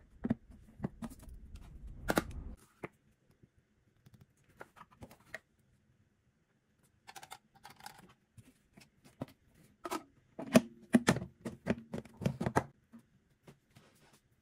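Scattered clicks, taps and knocks of small objects being handled. A low hum under the first couple of seconds cuts off abruptly, a near-silent stretch follows, then a denser run of clicks and knocks.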